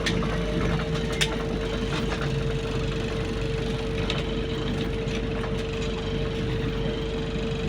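Ride noise inside a moving bus: a steady hum with a constant whine, and the bus's interior fittings rattling, with a sharp click about a second in.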